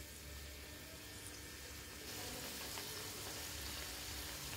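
Folded wheat-flour dough pieces deep-frying in hot oil in a kadai: a faint, steady sizzle and bubbling that grows a little louder about two seconds in.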